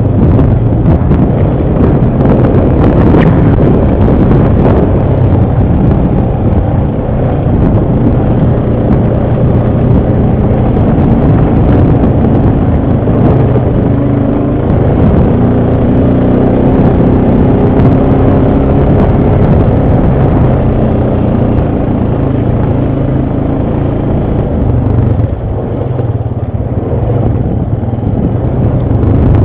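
ATV engine running steadily under way, with wind buffeting the microphone; the engine sound dips briefly near the end.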